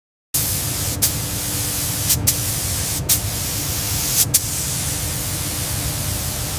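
Paint spray gun hissing, starting suddenly about a third of a second in and broken by four short breaks about a second apart.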